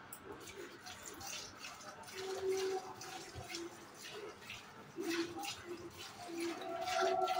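A cow being milked by hand: jets of milk squirt into a pail at about two strokes a second. A faint steady tone joins about two seconds in and grows stronger near the end.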